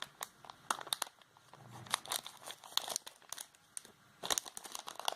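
Unboxing packaging of a 3.5 mm splitter cable being handled, crinkling and crackling irregularly in short clusters.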